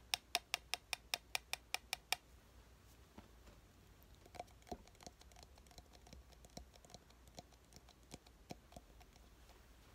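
Close-to-the-microphone ASMR clicking and tapping: a quick run of about a dozen sharp clicks over the first two seconds, then softer, scattered clicks.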